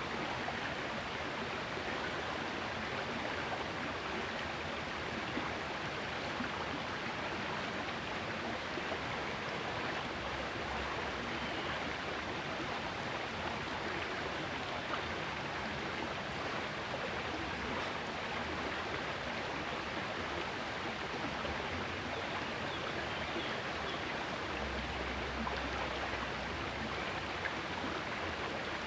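Small river flowing: a steady, even rush of running water.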